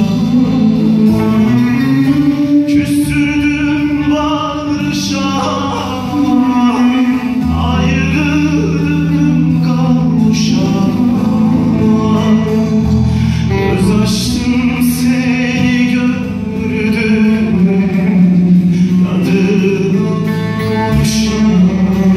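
Live Turkish folk song: a man singing a slow, held, ornamented melody over a band of plucked long-necked bağlama and bass guitar.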